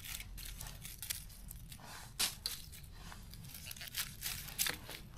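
Mushrooms being cut and pulled from a dense cluster on the forest floor: scattered soft tearing and crackling of stems and leaf litter, with a few louder snaps about two seconds in and near the end.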